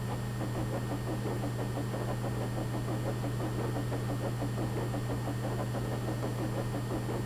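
A train running along: a steady low hum with fast, even clicking.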